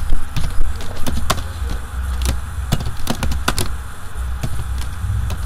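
Computer keyboard typing: irregular keystroke clicks, a few loud ones near the start and a cluster around three seconds in, over a steady low hum.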